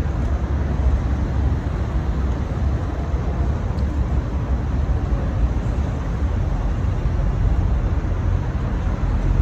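Steady low rumbling background noise outdoors, heaviest in the bass, with no distinct event in it.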